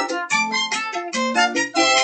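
Music: an instrumental passage of a children's English-lesson song about workplaces, played between the sung lines with no singing.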